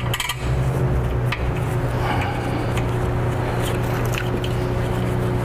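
Scattered light clicks and clinks of hand tools on bolts over a steady low hum.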